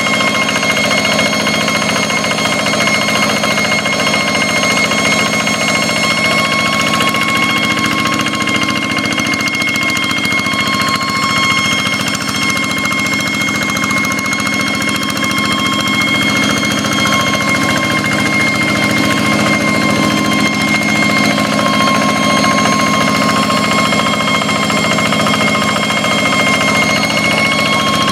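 Hand tractor's Kubota single-cylinder diesel engine running steadily, a knocking rumble with a constant high whine ("ngiung ngiung") over it.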